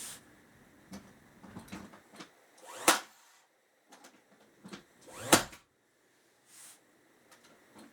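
Two hard hammer blows on a nail in a wooden frame, about two and a half seconds apart, with lighter knocks and clicks of handling the wood in between.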